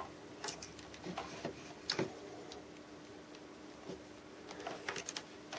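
Faint scattered clicks and light taps of headphone cables being handled against a wooden desk, over a faint steady hum.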